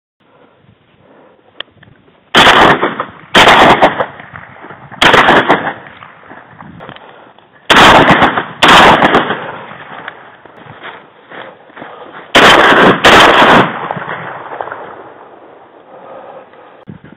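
Shotgun firing at ducks, heard from right at the gun: seven very loud blasts that clip, mostly in quick pairs about a second apart, each ringing out briefly.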